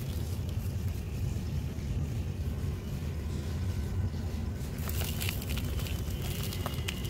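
Dry sand-and-mud dust trickling through fingers into a plastic basin, then a molded sandy clump crushed by hand, with a few small crackles about five seconds in, over a steady low background rumble.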